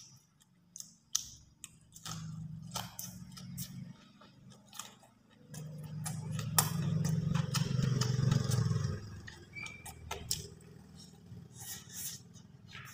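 Close-up eating sounds: chewing and mouth clicks, with a metal spoon scraping and clinking in a bowl of rice. A louder stretch of dense sound falls in the middle.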